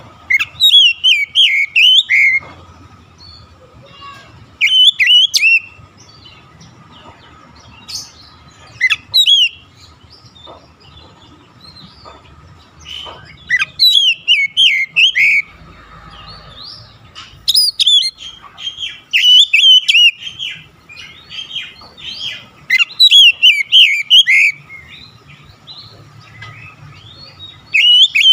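Oriental magpie-robin (kacer) singing: loud phrases of quick whistled notes that rise and fall in pitch, each phrase a second or two long, with short pauses between.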